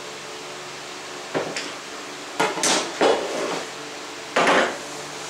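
Clanks and clatter of metal hand tools and an aluminium Festool guide rail being handled and set down on a plywood sheet: a handful of sharp knocks from about a second and a half in, the loudest near the middle and one more near the end.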